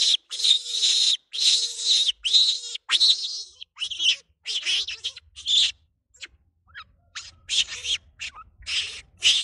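Young rhesus macaque screaming over and over: a run of short, shrill squeals, about two a second, thinning briefly just past the middle before picking up again.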